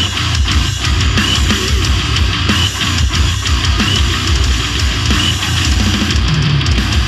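Heavy metal music: electric guitars over a drum kit with a steady beat.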